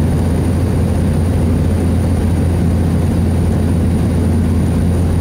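Cabin noise of a Cessna 208 Caravan in flight, heard from inside the passenger cabin. Its single PT6A turboprop and propeller run steadily: an even, loud low drone with a hiss over it.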